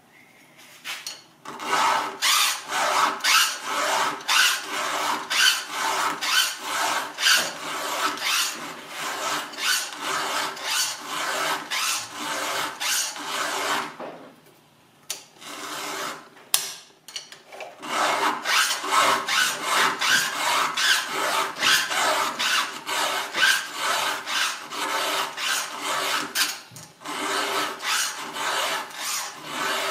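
Hand round file rasping through the cutter teeth of a Stihl saw chain, sharpening them with quick, even strokes. The strokes come in two long runs with a pause of a few seconds in the middle.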